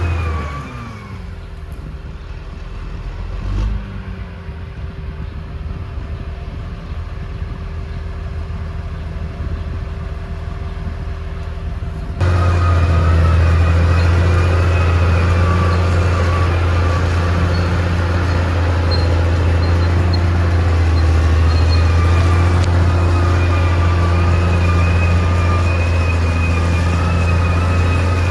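Caterpillar D6R XL crawler bulldozer's diesel engine running. The revs drop in the first second and it runs quieter for about ten seconds, with a brief rev and a thump near four seconds. About twelve seconds in it turns suddenly much louder and holds steady, with a high wavering whine over it.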